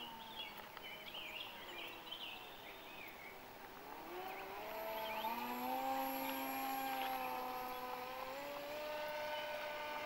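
Radio-controlled Icon A5 model seaplane in flight: a whining motor-and-propeller drone. It rises in pitch and gets louder about four seconds in as the plane comes in low, then holds fairly steady and steps up a little near the end.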